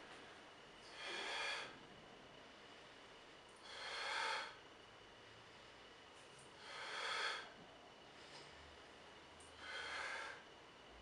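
A man's breaths of exertion, loud and rushing, one with each dumbbell front raise: four of them, about three seconds apart.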